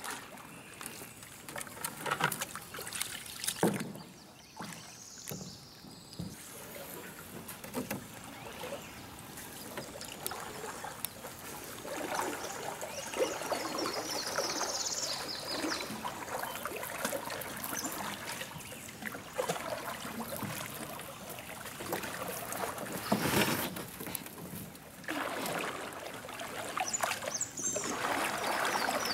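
Canoe paddling on a river: paddle strokes dipping and splashing, water running and trickling around the hull, with a few sharper knocks.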